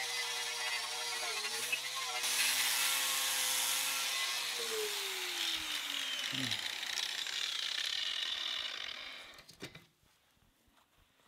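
Angle grinder with a paint-remover disc stripping rust and old paint from rusty steel: a steady motor whine over harsh grinding, the pitch dropping partway through. It stops about a second and a half before the end.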